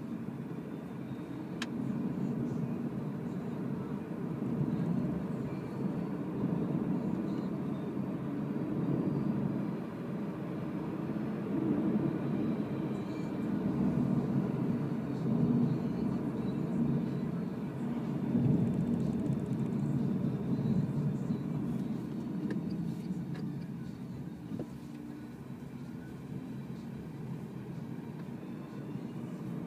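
Renault ZOE electric car driving, heard from inside the cabin: steady low tyre and road rumble with no engine sound, and a faint high whine that rises near the end.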